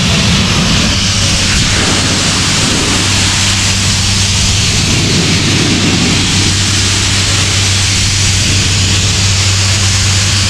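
Compressed-air blowpipe blasting dust off a warehouse roof, a loud steady hiss. Underneath it is the low steady hum of the diesel air compressor that feeds it.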